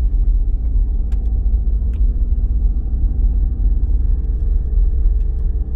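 Blizzard wind buffeting the microphone: a loud, steady low rumble with a few faint clicks.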